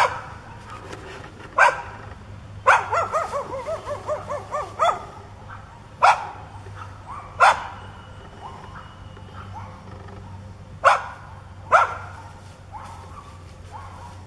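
Medium-sized dog barking aggressively at a person: single sharp barks a second or more apart, with a quick run of about eight barks about three seconds in.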